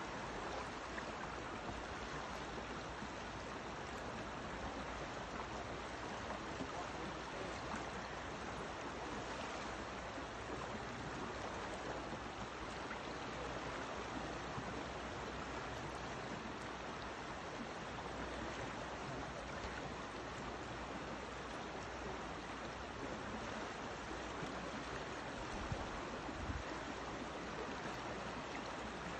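Fast, shallow river water rushing steadily over a choppy riffle.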